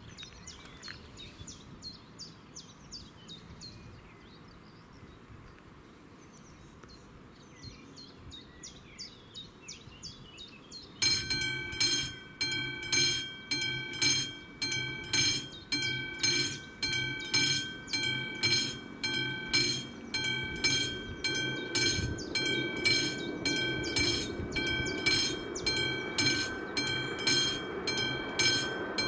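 Birds singing, then about eleven seconds in a level crossing warning bell starts ringing, about one and a half strokes a second, each ring fading before the next: the crossing has activated for an approaching train. A low rumble grows beneath the bell near the end.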